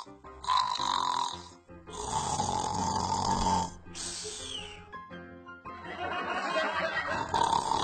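A person snoring repeatedly, long snores of a second or two each, over background music.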